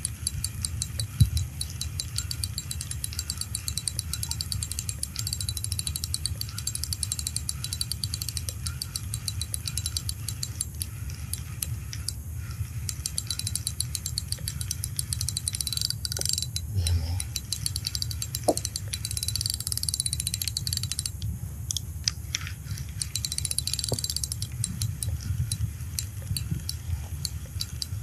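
Spinning fishing reel being cranked steadily, its gears and rotor giving a fast, even clicking whir as line is wound in, with a few short pauses in the winding.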